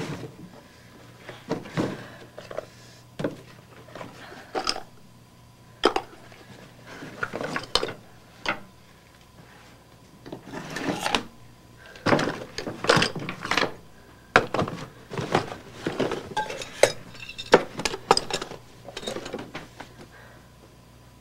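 Metal tools and hard objects being picked up, set down and handled on a workbench: a string of irregular clinks, clanks and knocks that comes thickest in the second half.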